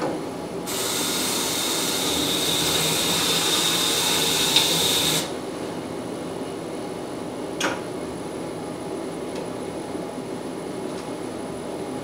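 Belt grinder grinding the flat-ground bevel on an O1 steel knife blank: a steady hissing grind with a high whine for about four and a half seconds, then it stops sharply as the blade comes off the belt. The grinder keeps running at a lower level, with one click a few seconds later.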